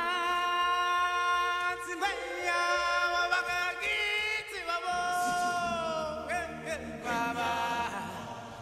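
Music: a voice singing long held notes with a wavering pitch, chant-like, the melody shifting to new notes a couple of times.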